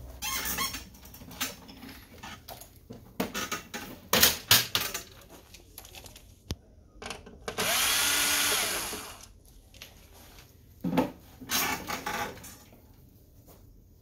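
A Black & Decker Pivot Plus cordless screwdriver runs once for about a second and a half near the middle, taking a screw out of the laser printer's side cover, its motor pitch shifting as it turns. Before and after it come sharp clicks and knocks from the printer's plastic covers being handled.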